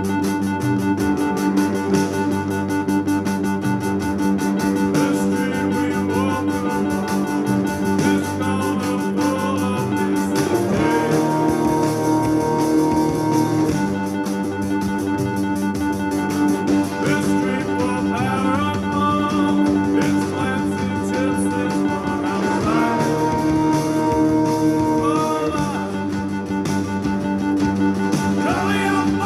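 Electronic keyboard playing music, with long held chords that change every few seconds.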